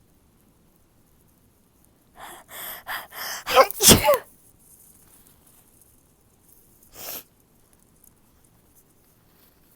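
A woman's loud, moany sneeze: a run of short catching breaths building up, then one loud sneeze with a wavering moan voiced through it. A short breath or sniff follows a few seconds later.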